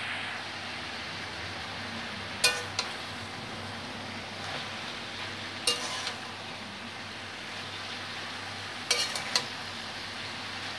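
Pumpkin leaves and vegetables sizzling in hot oil in an aluminium kadai, with a flat metal spatula clinking sharply against the pan three times, about every three seconds, as they are stirred and turned.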